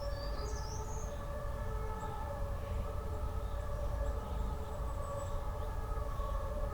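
A steady hum made of several held tones over a low rumble. A few faint, high bird chirps come through it about half a second in and again around five seconds.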